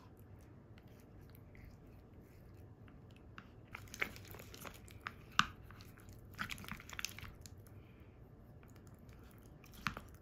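Wooden spoon stirring yogurt, blueberries and granola in a glass dessert cup: soft crunching and squishing with scattered sharp clicks of the spoon against the glass, most of them in the middle and one near the end.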